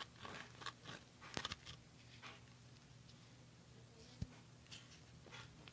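White slime being squished and poked by hand, giving quiet, irregular sticky clicks and crackles. They come thickly for the first two seconds or so, then only now and then.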